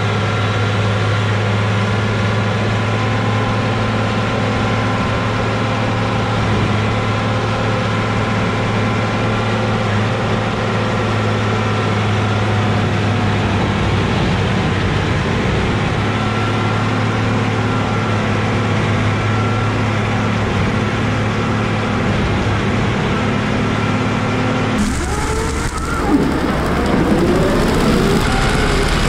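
Case tractor's diesel engine running steadily under load while powering a bale processor that shreds and blows out straw bedding. About 25 seconds in, the sound cuts abruptly to a closer rush of shredded straw flying and landing.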